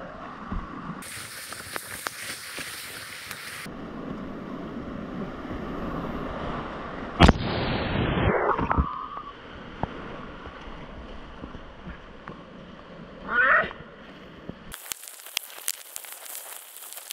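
Whitewater rushing and splashing around a kayak running a river rapid, heard close up. There is a sharp knock about seven seconds in and a run of sharp clicks near the end.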